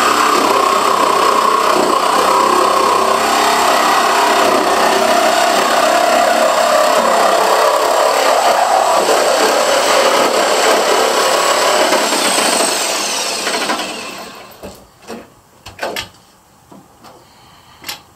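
Electric power tool working wood, running steadily, then winding down a few seconds before the end. A few sharp knocks follow.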